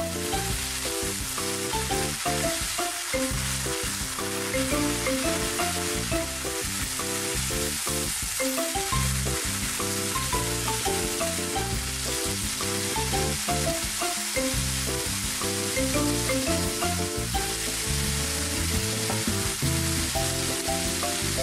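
Shirataki konjac noodles sizzling steadily in a frying pan, a continuous hiss, with light background music playing over it.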